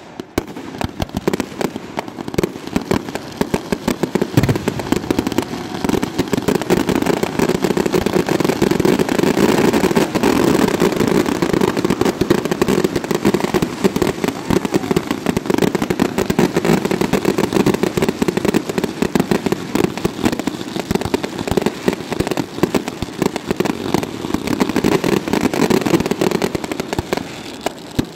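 Fireworks display going off in a rapid, continuous barrage of bangs and crackles. It builds a second or so in, holds dense and loud, and thins slightly near the end.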